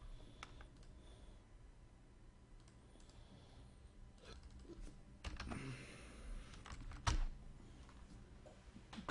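Faint, scattered clicks and taps, with a sharper click about seven seconds in.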